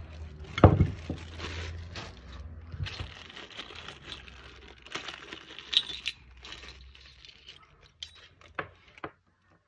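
Plastic packaging bags crinkling and rustling as they are handled and opened, with small metal hot air gun nozzles clinking against each other in several sharp ticks. The handling thins out and goes nearly quiet near the end.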